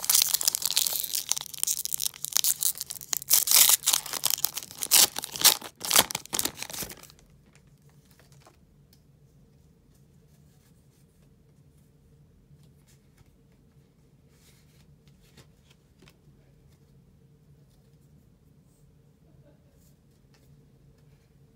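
A foil Pokémon booster pack being torn open and its wrapper crinkled, for about seven seconds, then near quiet with a few faint soft ticks as the cards are handled.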